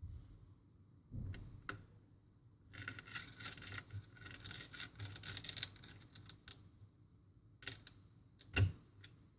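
Laptop parts being handled: a few knocks, then about three seconds of scratchy scraping and rustling, then a couple of sharp clicks near the end, the last the loudest.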